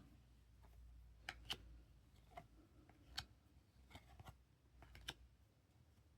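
Faint, scattered clicks and light ticks of glossy trading cards being handled and flipped through one by one.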